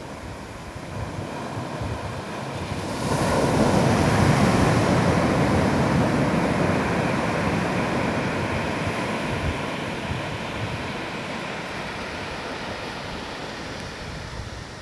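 Surf breaking and washing up a sandy beach. A wave swells to its loudest about three to four seconds in, then slowly fades as the wash runs back.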